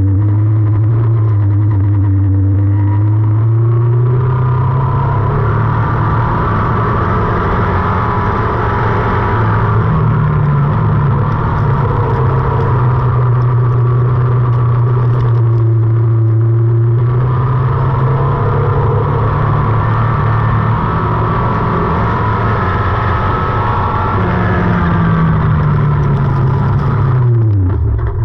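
Tube-frame dirt-track racing car's engine running hard under load at high revs, heard from under the car. The revs climb early, dip briefly just past halfway, climb again, and fall away sharply near the end as the car comes off the throttle.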